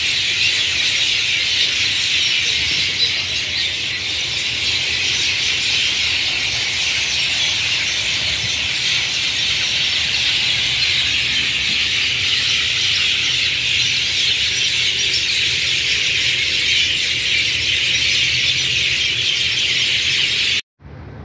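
A large flock of birds in the trees making a loud, continuous racket of dense, high-pitched chattering calls. It cuts off suddenly near the end.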